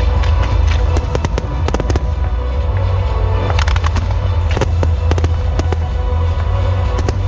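Fireworks display: many sharp bangs and crackles over loud dance music with a heavy, steady bass.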